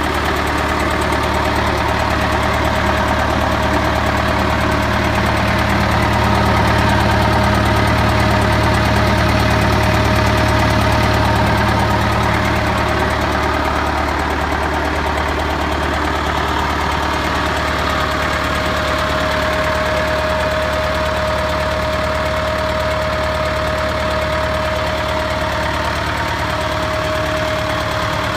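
David Brown 990's four-cylinder diesel engine idling steadily.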